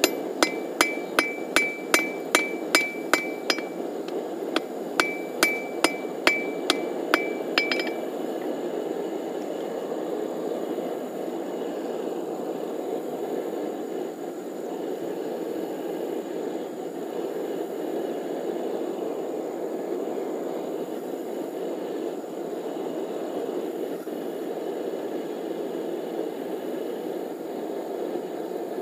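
Hand-hammer blows on steel cable on an anvil, forge-welding cable Damascus: about two and a half blows a second, each with a ringing anvil tone, in two runs with a short break, stopping about eight seconds in. A steady low rushing noise runs underneath and is all that remains afterwards.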